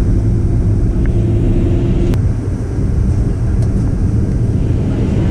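Boeing 737-800 cabin noise during descent: a steady low rumble of engines and airflow. A steady hum stops about two seconds in with a sharp click.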